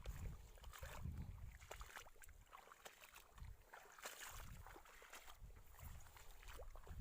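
Faint kayak sounds: water swells against the hull about once a second, with small knocks and rustles.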